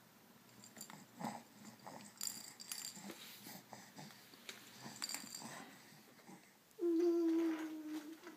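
A baby breathing and making small breathy noises, then, about seven seconds in, one long voiced 'aah' held for over a second and falling slightly in pitch.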